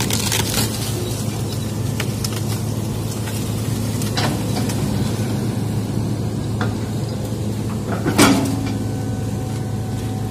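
Hydraulic excavator's diesel engine running steadily under load, heard from the cab, with a few sharp snaps and knocks as the bucket works through brush and branches, the loudest about eight seconds in.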